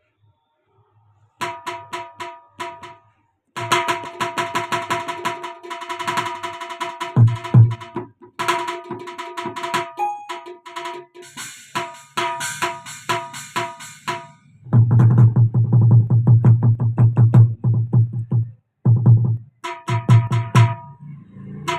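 Roland HandSonic electronic hand percussion pad being played: bursts of quick, ringing, pitched percussion strikes like wood blocks. About two-thirds of the way through comes a run of fast, deep drum hits, and then a few more ringing strikes near the end.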